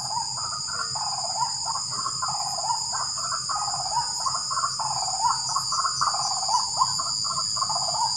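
A steady high insect drone from crickets, with many overlapping, repeated calls of white-breasted waterhens (keruak) going on throughout.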